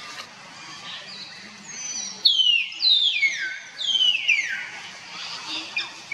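Three loud, high-pitched animal calls, each sliding steeply down in pitch, starting a little over two seconds in, over a steady background hiss.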